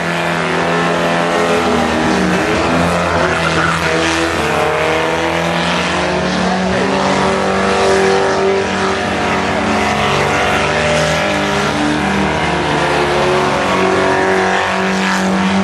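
A car spinning doughnuts on tarmac: its engine held at high revs, the pitch stepping up and down, with tyres squealing and skidding.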